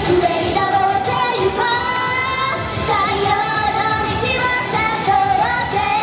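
Female idol singer singing a pop song live into a handheld microphone over backing music, holding long notes.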